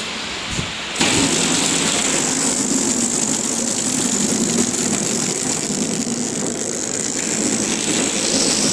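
KT 250B horizontal flow packaging machine running steadily while wrapping glasses: a continuous motor hum with rapid fine clicking from the mechanism and a thin high whine. It gets noticeably louder about a second in.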